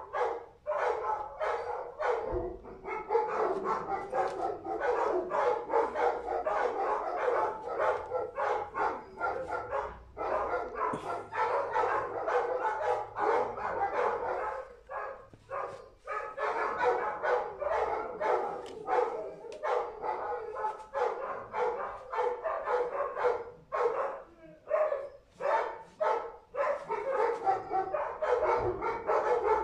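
A dog barking over and over, many short barks in quick succession.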